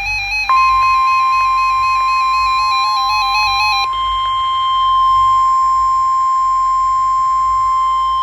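NOAA Weather Radio 1050 Hz warning alarm tone, one steady high-pitched tone that starts about half a second in, announcing a warning broadcast. Until about four seconds in it overlaps a warbling electronic alert tone that alternates between two pitches.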